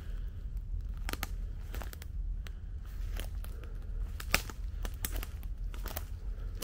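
Footsteps crunching through dry undergrowth, with irregular crackles and snaps of twigs and leaves over a steady low rumble.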